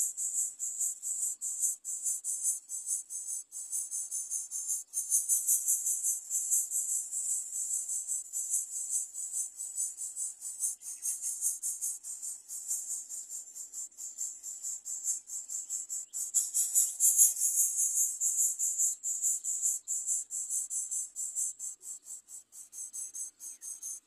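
Insects chirring in a high-pitched trill of fast, even pulses that runs on without a break, swelling louder twice.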